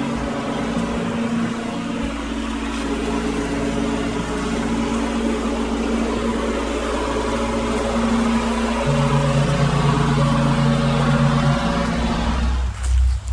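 Husqvarna GT52XLS riding lawn mower running steadily as it mows, getting gradually louder as it drives closer.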